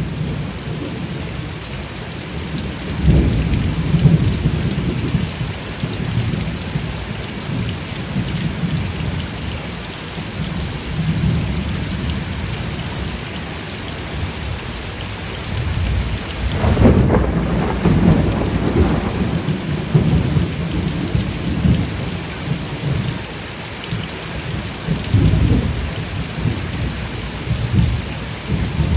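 Steady heavy rain with thunder rolling in low rumbles, the strongest a little past halfway through.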